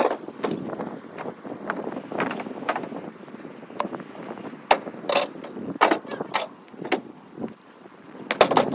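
Dry elm firewood being handled and loaded into a pickup bed: irregular sharp wooden knocks and clunks, several close together at times, the loudest about five to six and a half seconds in.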